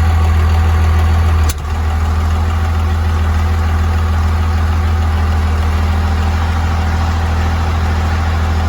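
5.9 Cummins inline-six turbo diesel idling steadily with a deep, even hum. A sharp click and brief drop in level about one and a half seconds in, then the same steady idle.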